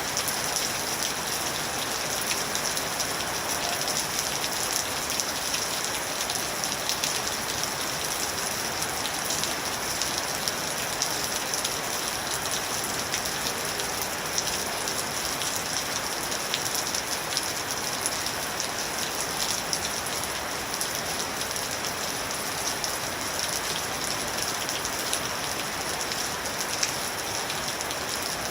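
Steady rain falling, an even hiss with many fine drop ticks and no let-up.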